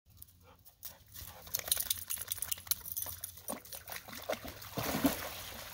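A dog wading into shallow water, splashing and sloshing with each step; the splashing starts about a second in and grows louder.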